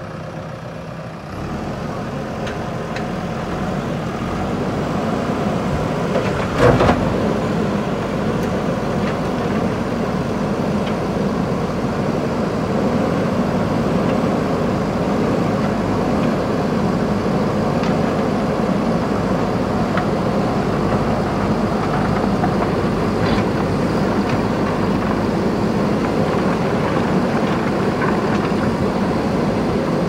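JCB backhoe loader's diesel engine running steadily under load as the backhoe arm works, growing louder over the first few seconds. A single loud clatter comes about seven seconds in.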